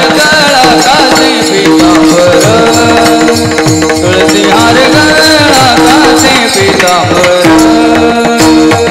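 Marathi Varkari kirtan music: voices singing a devotional abhang over a steady drone. Two-headed mridang drums play strokes with falling bass tones, and the chorus keeps time on small taal hand cymbals.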